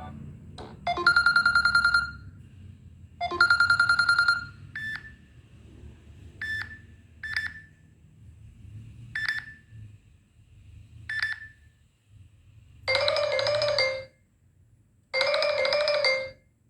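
Samsung Galaxy J3 Pro (2017) notification tones, played one after another as short electronic chimes. First come two one-second chimes, then several short single blips, then two fuller one-second tones near the end. Each tone is heard twice.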